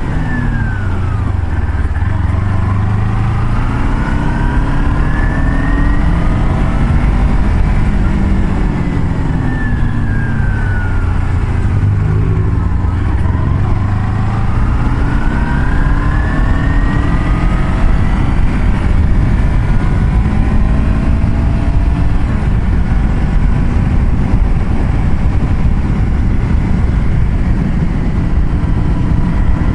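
Vehicle engine running on the road under steady road and wind noise. Its pitch climbs for several seconds, falls away, climbs again, then holds steady through the second half.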